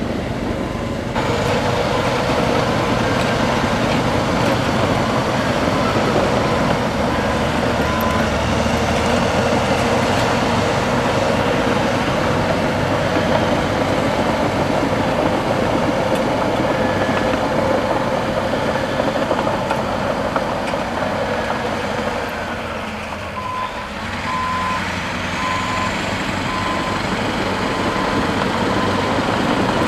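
Caterpillar D9N bulldozer working, its diesel engine running steadily under load. About three quarters of the way through the engine dips, and then a reversing alarm beeps about once a second.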